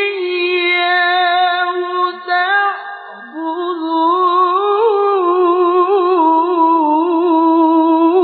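A male qari reciting the Qur'an unaccompanied in melodic tilawah style. He holds long, ornamented notes with a wavering pitch, dips briefly about two and a half seconds in, then carries on with another long drawn-out phrase.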